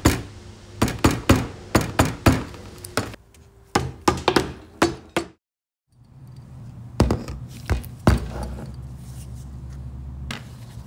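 A run of irregular sharp knocks and clicks from hard parts being handled and tapped in a workshop. The sound drops out briefly a little past halfway, then a few more knocks follow over a low steady hum.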